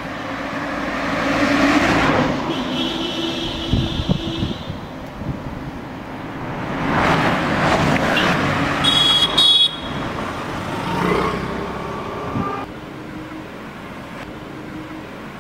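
City street traffic: vehicles passing, their noise swelling and fading several times. A horn sounds for about two seconds near the start, and another horn honks briefly about nine seconds in.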